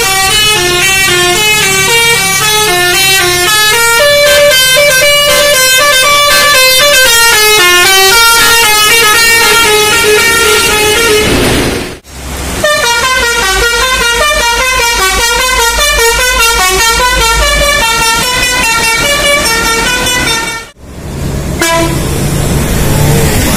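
Basuri telolet bus horn, a multi-tone air horn, playing quick stepped melodies note after note. The first tune breaks off about twelve seconds in and a second tune follows. In the last couple of seconds a lower droning sound replaces it.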